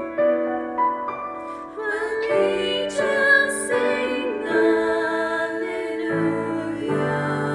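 Slow, gentle song: female voices singing held notes with piano accompaniment.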